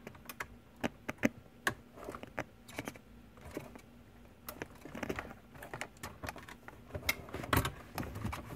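Irregular sharp plastic clicks and taps as a BMW convertible-top switch and its surrounding interior trim are handled and pressed into place, with a denser run of clicks in the second half.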